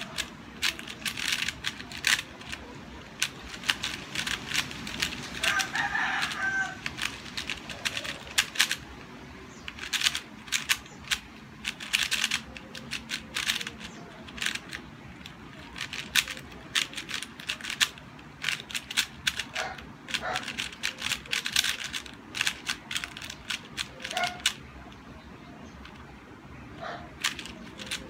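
QiYi QiYuan 4x4 plastic speedcube being turned fast by hand: rapid clicking and clacking of the layers, in bursts with short pauses. A rooster crows once, about six seconds in.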